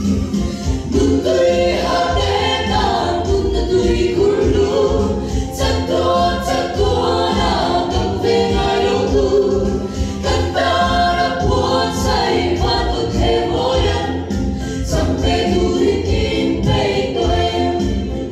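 A group of women singing a Christian song together in harmony into handheld microphones.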